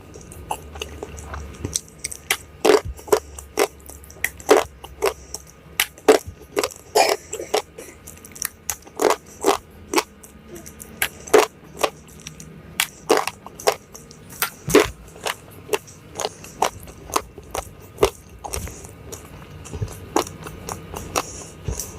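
Close-miked eating: chewing with a steady series of sharp, crisp crunches, about one to two a second.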